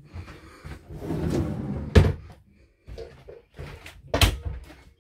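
Lift-up overhead cupboard doors in a camper van being shut, two sharp bangs about two seconds in and again about four seconds in, with lighter knocks and handling rustle around them.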